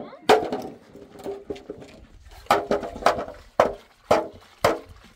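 Repeated hard knocks: one blow, a pause of about two seconds, then a steady run of blows about half a second apart, each with a short ring.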